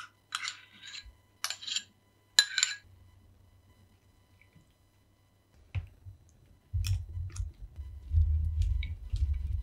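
A few sharp clinks of a small ceramic pot knocking on a ceramic bowl as spices are shaken out. Then, after a quiet stretch, a block of kaşar cheese is grated on a box grater, a run of quick rubbing strokes that starts about seven seconds in.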